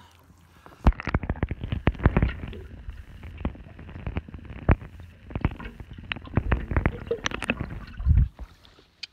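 Water sloshing and gurgling around a camera held just under the surface, heard as muffled underwater sound with many irregular clicks and knocks against the camera housing, starting about a second in.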